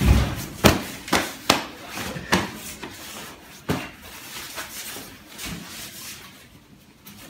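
Sharp knocks and clothing rustle of a close-range pat-down: hands patting and grabbing a padded jacket, about seven knocks in the first four seconds, then quieter rustling that fades near the end.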